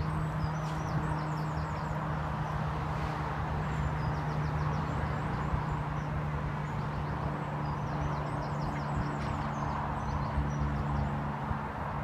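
Birds singing in repeated runs of quick high chirps over a steady low hum and a constant rushing background noise.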